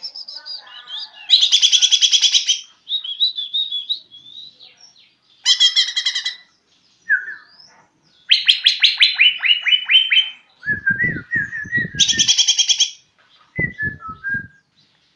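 Green leafbird (cucak ijo), a young bird still learning its song, singing a varied medley. It mixes fast buzzy trills, short whistled phrases and a quick series of falling notes. Short runs of soft low thumps come twice in the second half.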